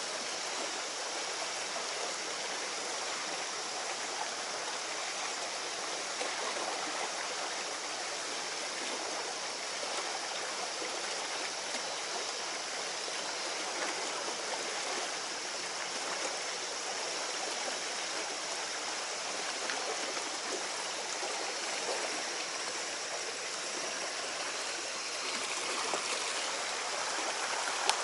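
A small stream running over rocks through a narrow rock gorge: a steady, even wash of flowing water that does not let up.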